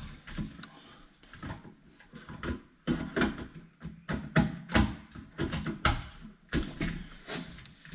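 Irregular clicks, taps and knocks of plastic fittings being handled and pushed into place at the wall, around the thermostat receiver backplate and its trunking.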